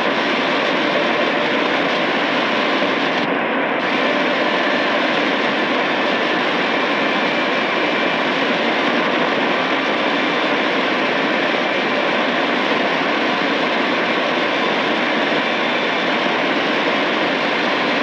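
Shortwave static from a Tecsun PL-880 portable radio as it scans up the band without finding a station: a steady loud hiss with faint whistling tones.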